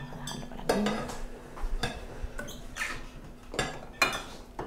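Kitchen utensils clinking and knocking against a glass bowl: a handful of separate light clinks and taps, a second or so apart.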